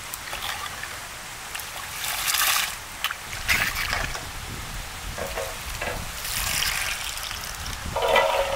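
Water sloshing, pouring and dripping in several separate bouts as a steel ladle scoops cauliflower florets out of a large pot of hot water and lifts them clear.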